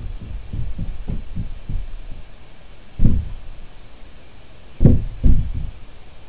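Low, dull thuds: a quick run of soft ones, about three a second, for the first two seconds, then a heavier thump about three seconds in and two more in quick succession near the end.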